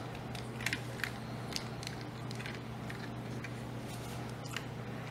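Scattered plastic clicks and snaps from a Transformers Combiner Wars Dragstrip action figure as its parts are swung and pressed into place by hand, over a steady low hum.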